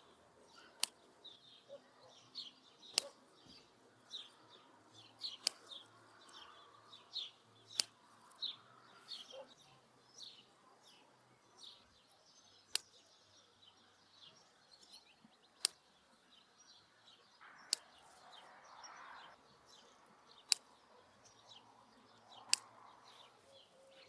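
Small birds chirping in quick, high, repeated calls, with a sharp click every two to three seconds standing out above them.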